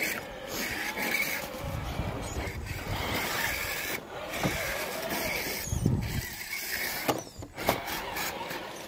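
RC crawler truck's small electric motor and gears whining, rising and falling in pitch as the throttle changes, with tyres and chassis scrabbling over rough ground.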